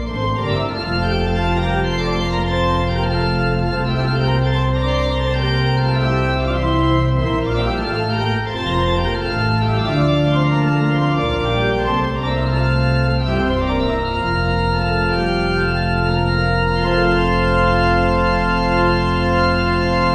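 Church organ playing the closing postlude: sustained full chords over steady bass notes, ending on a long held chord.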